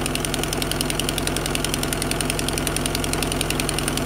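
Vauxhall X20XEV 2.0-litre 16-valve Ecotec four-cylinder engine idling steadily while it warms up after a coolant refill, with a fast, even ticking over the hum.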